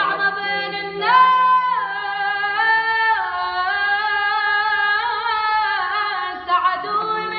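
A girl singing a capella, holding long notes and sliding and wavering between pitches in ornamented runs.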